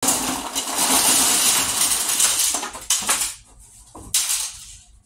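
Dozens of small circuit boards from TV remotes poured out of a cardboard box onto a wooden tabletop, clattering loudly for almost three seconds. Two shorter clatters follow about a second apart.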